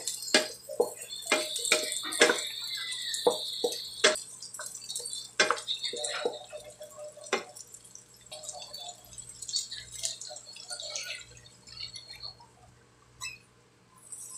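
Kitchen cookware and utensil sounds: a quick run of sharp knocks and clicks over the first half, with dripping water, then fewer and quieter clinks.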